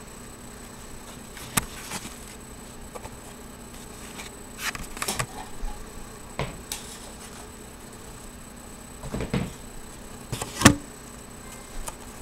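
Scattered knocks, clicks and clatters of kitchen things being handled, a few at a time with pauses between, the loudest knock about ten and a half seconds in, over a faint steady high whine.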